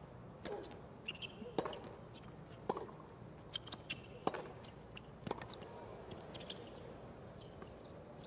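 Tennis ball being struck back and forth by rackets in a baseline rally on a hard court: sharp single pops about once a second, each with a short ring.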